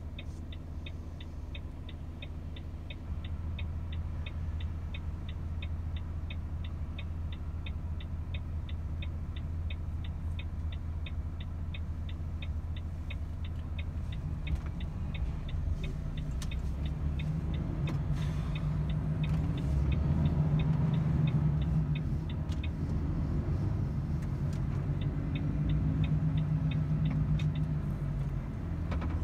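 Volvo FH 500 truck's 13-litre six-cylinder diesel running with a steady turn-signal indicator ticking, about three ticks a second. The ticking stops about halfway through, and the engine then grows louder and its note rises as the truck pulls under load.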